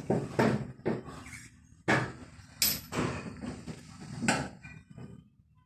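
Wrench and transit bolts on the back of a washing machine knocking and clicking as the bolts are unscrewed and pulled out: a string of irregular sharp knocks with short gaps between them.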